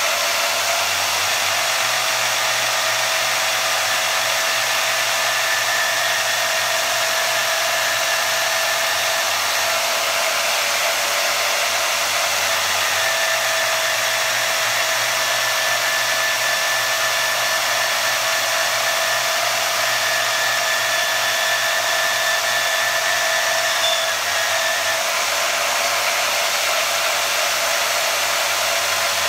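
Bauer 10 amp variable-speed portable band saw running with a steady motor whine as pieces of wood are fed into its blade and cut.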